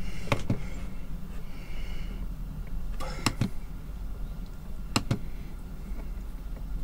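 Sharp clicks from the rotary push-knob of a Truma iNet control panel being turned and pressed, a few at a time spread over several seconds, over a steady low hum.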